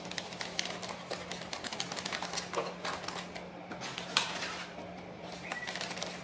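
Wrapped tea bags crinkling and tapping against a clear plastic tea organizer as they are slotted into its compartments: a run of small, quick clicks and rustles, with one louder tap about four seconds in.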